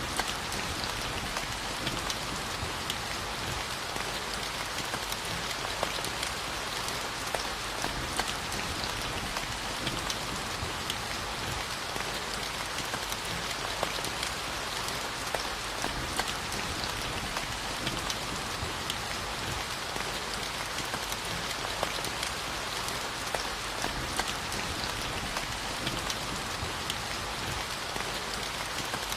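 Steady rainfall: an even hiss with many small, sharper drop ticks scattered through it, unchanging throughout.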